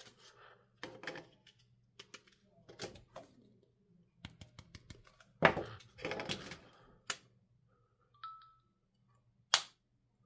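Hands unpacking AirPods Pro 2 packaging: scattered clicks, rustling and knocks, with a louder thump about halfway through and a short faint tone near the end.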